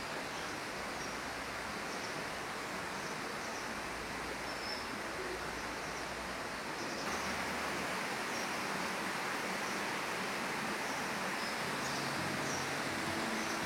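Steady outdoor ambient noise with faint, short, high chirps of small birds scattered through it; the noise steps up slightly about seven seconds in.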